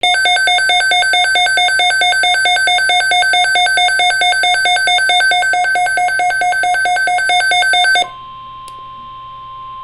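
Rapid electronic alert beeping, about five or six beeps a second, cuts off sharply about eight seconds in. A quieter steady single-pitched warning tone follows, the NOAA Weather Radio alert tone that comes before an emergency alert broadcast.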